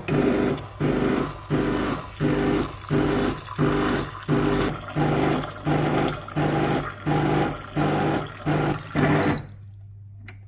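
Karaca Coffee Art 1101 espresso machine's pump buzzing in even, regular pulses, about one and a half a second, as it pushes water out through the steam wand. The pulsing stops about nine seconds in, leaving a steady low hum.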